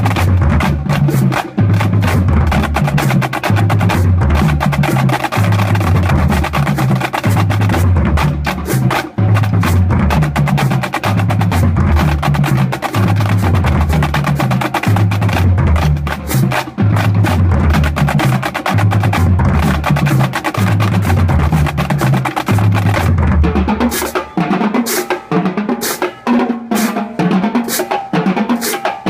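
High school marching drumline playing a cadence: snare drums over a repeating pattern of low bass-drum notes. About 24 seconds in the low pattern stops and sparser, higher-pitched drum strokes take over.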